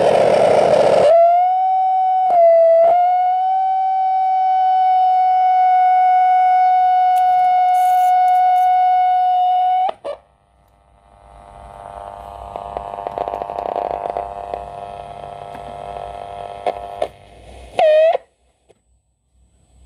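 Sanyo MW220K radio cassette player's receiver giving a steady whistle tone that dips briefly twice and cuts off suddenly about ten seconds in, followed by a buzzing hiss of static that swells and fades, and a short whistle near the end, as heard while tuning across the radio band.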